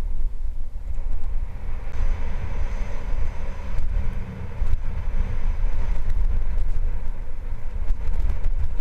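Wind buffeting a helmet camera's microphone as a downhill mountain bike rolls fast over a dusty dirt and gravel trail, tyres hissing on the loose surface, with a few knocks from bumps.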